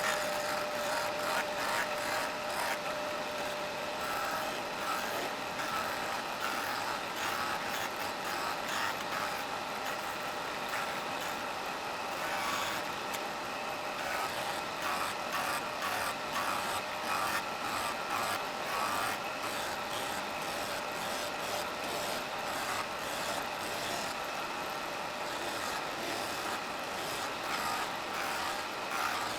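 Electric sander running steadily while an MDF template is shaped against it, rounding its wheels: a steady motor hum with an uneven scratchy noise of the wood on the abrasive.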